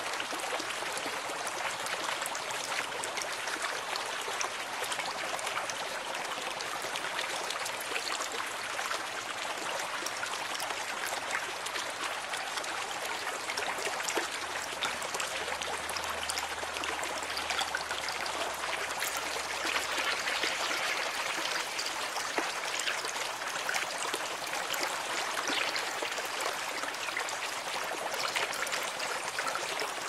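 Reef aquarium water trickling steadily, with many fine ticks and a faint low hum joining briefly around the middle.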